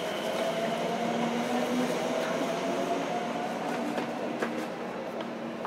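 JR Kyushu 305 series electric train heard from inside its motor car, running through a subway tunnel. Steady running noise with a thin motor whine whose pitch rises slightly over the first few seconds.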